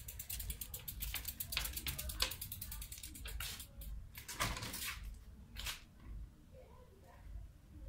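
BMX rear semi-sealed cassette hub ratcheting in rapid, even clicks as the bike is wheeled along without pedalling, the clicking thinning out and stopping about three seconds in. A few louder scuffs follow.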